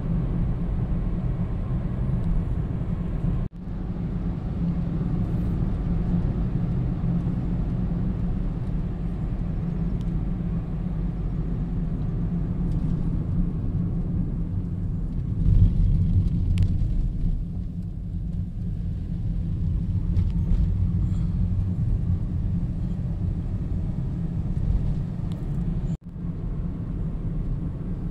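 Road noise inside a moving car: a steady low rumble of engine and tyres, swelling louder for a moment about halfway through and dropping out briefly twice.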